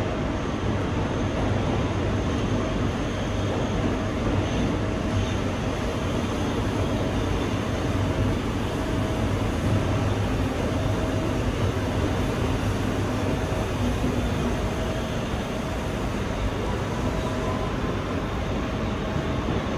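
Kawasaki R211T subway car running between stations, heard from inside the car: a steady rumble of wheels on the rails, with a faint tone that comes and goes.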